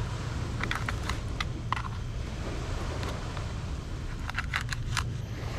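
Knife slicing a needlefish into chunks, the blade clicking on a plastic cutting board in two quick clusters, about a second in and again near the end, over a steady low rumble.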